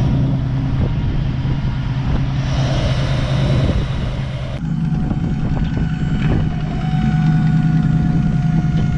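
1969 Ford Mustang's V8 engine idling steadily, running again after sitting unused for several years.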